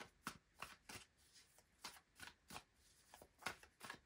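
A deck of tarot cards being shuffled by hand: quiet, irregular card slaps and rustles, a few a second.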